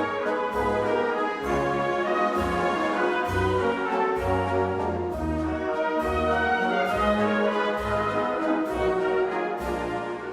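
Brass-heavy orchestral music with a steady bass beat under held horn and trombone notes.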